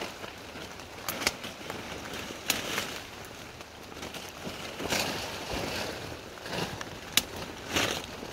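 Salal leaves rustling and stems snapping as a bunch of cut salal is handled close by, with a few sharp snaps standing out over a steady rustle.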